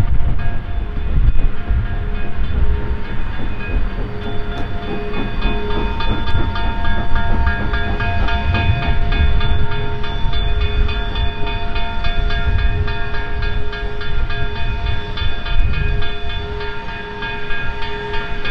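Former Canadian National steam locomotive 2141, built in 1912 by the Canadian Locomotive Company, rolling slowly up to the platform. A low rumble swells and fades every second or so, and a steady, evenly struck ringing sounds over it.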